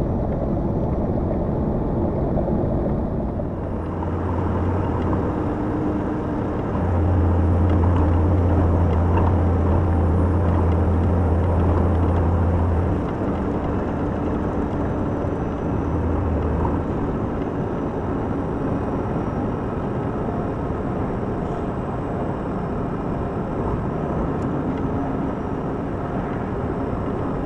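Cab interior of a Volvo FMX truck cruising on a highway: the steady noise of the diesel engine and the tyres on the road. A deep hum swells about seven seconds in and drops away about six seconds later.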